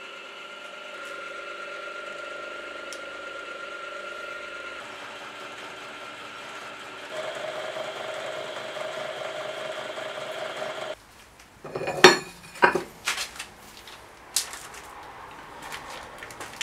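Milling machine running steadily as a face mill skims a steel plate, stopping suddenly about eleven seconds in. Then several sharp metallic clanks and knocks as the steel plates are handled, the loudest just after the machine stops.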